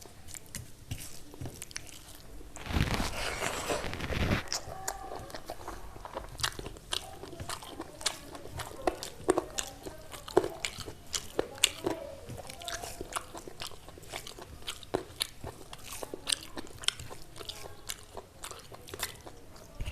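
Close-miked eating: crunchy bites and chewing with many sharp mouth clicks, and a louder noisy stretch about three seconds in.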